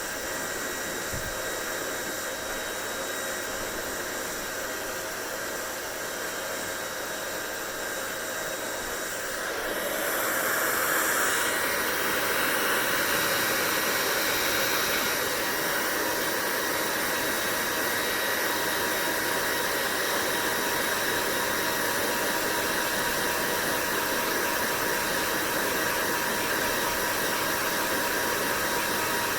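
Hair dryer running with a steady whooshing blow and a faint motor hum. About ten seconds in it gets louder and brighter, then holds steady.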